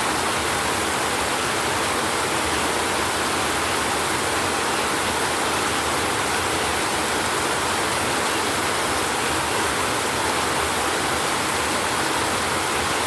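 Steady, even rain with no thunder.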